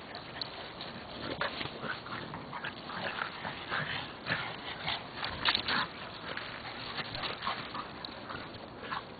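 A French bulldog and a Boston terrier play-wrestling, making a string of short, rough dog noises that are loudest a little past the middle.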